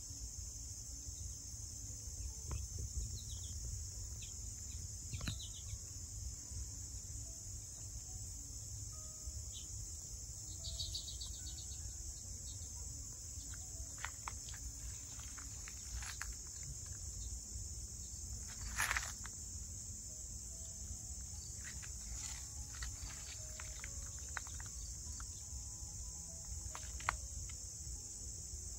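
Steady high-pitched insect chorus over a low rumble, with a few brief chirps and clicks scattered through it. The loudest of these comes about two-thirds of the way in.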